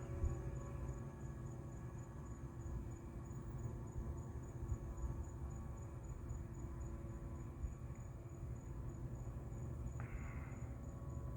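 Crickets chirping in a steady high pulse, several pulses a second, over a low steady hum from some engine or machine. A short higher sound comes near the end.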